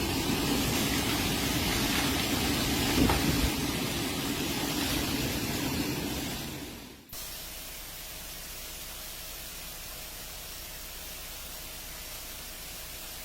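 Rushing storm wind, a loud steady hiss with a low rumble of wind on the microphone, fading out about seven seconds in and giving way to a quieter steady hiss.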